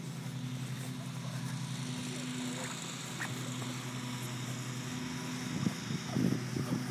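A small engine running steadily in the background with a low, even hum. A few short vocal bursts, grunts and shouts, come near the end.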